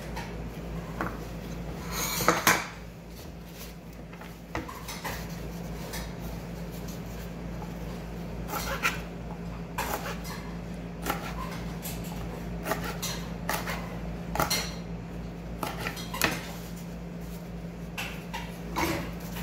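Irregular knocks and clicks of a kitchen knife on a cutting board as vegetables are sliced, the loudest clatter about two seconds in. A steady low hum runs underneath.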